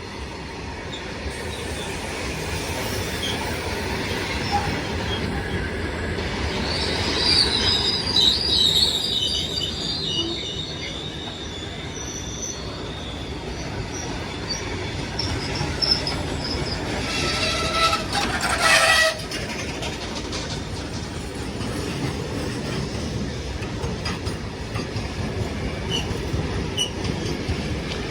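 A long goods train running along the track, a continuous rumble of its wagons. High wheel squeal rises and fades about a quarter of the way in, and a short horn blast sounds about two-thirds of the way through.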